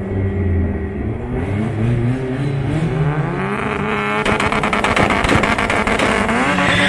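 Turbocharged Honda Civic's four-cylinder engine revving up and down repeatedly in the burnout box. From about four seconds in it runs hard with a rapid, even stutter and grows louder, and a tyre-spin hiss starts near the end.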